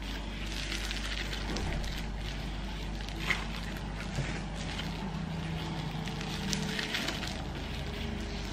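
Thin plastic food-prep gloves rustling and a knife cutting raw chicken, with a few small clicks, one sharper about three seconds in, over a steady low hum.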